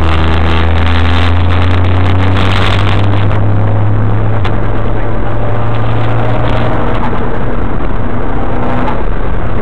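Mitsubishi Lancer Evolution wagon's turbocharged four-cylinder engine pulling under load, heard loud from inside the cabin over constant road and wind noise. The engine note rises over the first few seconds, then holds steady.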